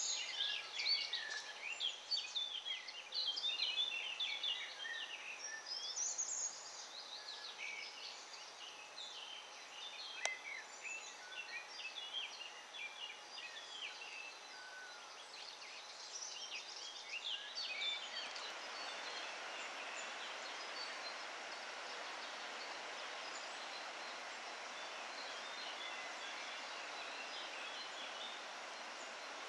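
Several small songbirds singing in spring woodland, a dense chorus of quick high chirps and trills. A little past halfway the birdsong thins and a steady, even hiss takes over.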